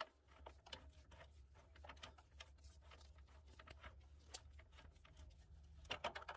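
Faint, irregular light clicks and ticks of a bolt and tools being worked on a car's lower control arm, as the vertical bushing bolt is turned down into its nut, with a few louder clicks near the end.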